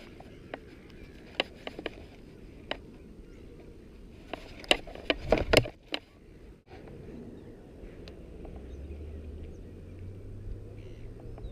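Scattered knocks and clicks from handling fishing gear, with a cluster of louder ones about five seconds in. A low steady hum comes in near eight seconds.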